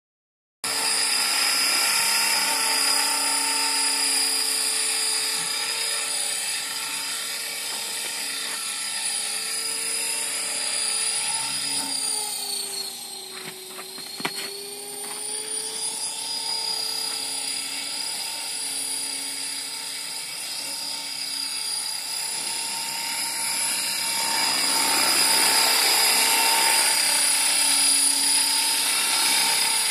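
Belt CPX 450-size electric RC helicopter hovering: a steady high motor-and-gear whine over the hum of the rotor blades. About halfway through, the pitch dips and recovers as the head speed sags briefly, with a single click at the low point.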